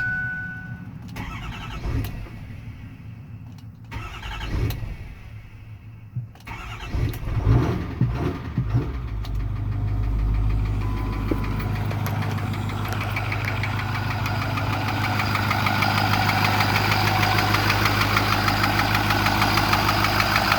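Ford 6.4-litre Power Stroke V8 diesel in a 2008 F-550 cranking and catching about nine seconds in, then idling with a regular rhythmic knock that the owner cannot place and hears from the passenger side, behind the turbo. A steady chime tone and a few clicks come before it.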